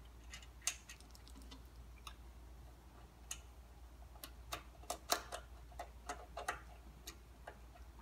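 Faint, scattered metal clicks and taps of a flathead screwdriver fitting a brass main jet back into the carburetor of a Honda-clone small engine, with a quicker run of clicks a little past halfway.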